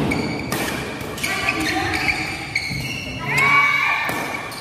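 Badminton rally in a large hall: rackets strike the shuttlecock several times, about a second apart, over the murmur of spectators, with a short rising squeal about three seconds in.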